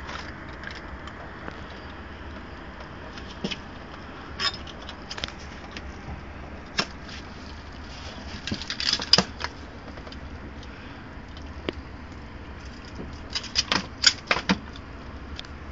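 Scattered light clicks and rattles as a freshly landed gilthead bream is handled on its hook and line over a landing net. There is a quick flurry about nine seconds in and another near the end, over a steady low rumble.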